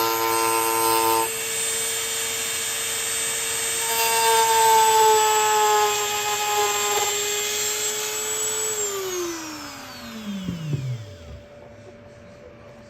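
Small high-speed power tool motor whining at a steady pitch. It is switched off about three-quarters of the way through and winds down, its pitch falling away over about three seconds.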